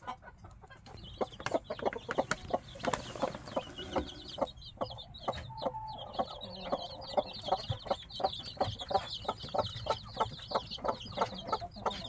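Broody hen clucking in short, rapid pulses after being disturbed, while her chicks, pushed out from under her wings, peep busily. A dense high peeping starts about four seconds in.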